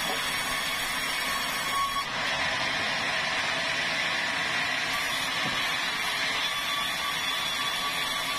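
Sawmill band saw running and ripping a red meranti plank as it is fed through the blade: a steady mechanical noise with a faint high whine.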